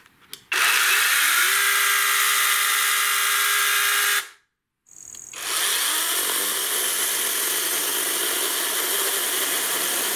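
21 V NaTiddy 6-inch cordless mini chainsaw running: a steady, high-pitched motor whine for about four seconds that cuts off abruptly, then about a second later the saw runs again while cutting through a tree branch, a rougher, noisier sound.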